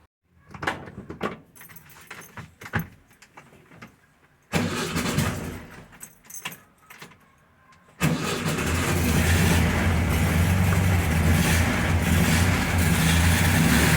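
Scattered clicks and knocks, then a Volkswagen Beetle's air-cooled flat-four engine starting about four and a half seconds in. From about eight seconds in, the engine runs steadily and loudly.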